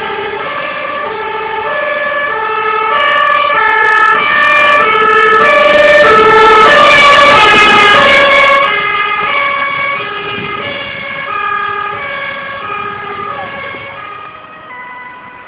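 Fire engine's two-tone siren, high and low notes alternating about every two-thirds of a second. It grows louder as the truck passes close, loudest around the middle, then fades as it drives away.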